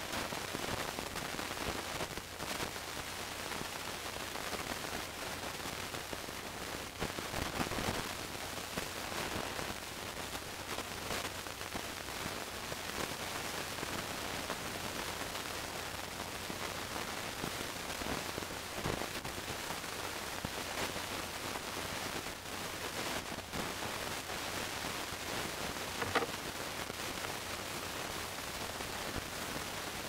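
Steady static hiss with scattered faint crackles and clicks, and one sharper click about 26 seconds in.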